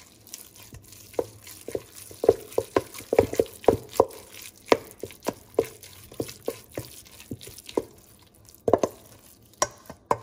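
Wooden spoon stirring seasoned ground chicken in a stainless steel bowl: irregular wet squelches and knocks of the spoon against the bowl, about two or three a second, with a short pause near the end.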